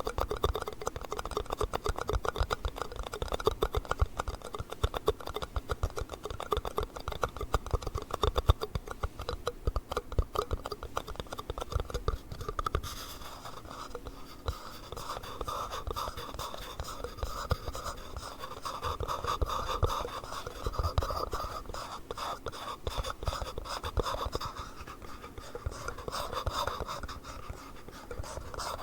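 Fast fingernail tapping and scratching on plastic yogurt cups. Dense rapid tapping in the first half gives way to more continuous scratching from about halfway through.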